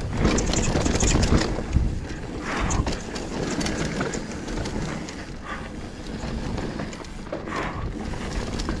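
Commencal Meta AM full-suspension mountain bike riding fast down a rough downhill trail: tyres rumbling over dirt and roots, with irregular knocks and rattles from the bike over the bumps, and wind noise on the microphone.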